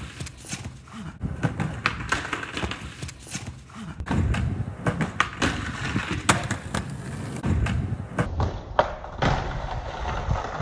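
Skateboard rolling on concrete, with repeated clacks and knocks of the board striking the ground and a low skate box.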